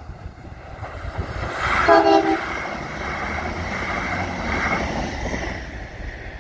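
Irish Rail 22000 class diesel multiple-unit train sounding a short horn blast about two seconds in, a warning as it comes up to the level crossing. It then passes at speed with a steady rush and rumble of wheels on the rails, which dies away near the end.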